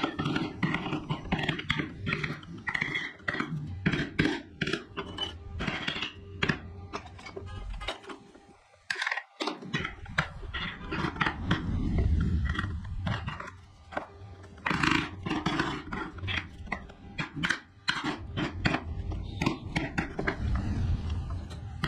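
A carving tool scraping and cutting wood in quick, irregular strokes with many small clicks, pausing briefly about nine seconds in.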